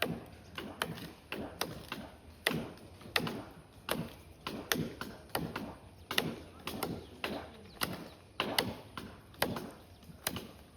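Silver oak branch wood being chopped with a hand blade: a steady run of sharp chopping strokes, about two a second.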